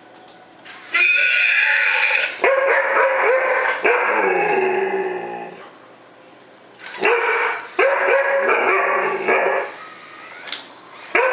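Young Alaskan malamute barking and yipping in two long runs of short calls that fall in pitch, with a brief lull in between.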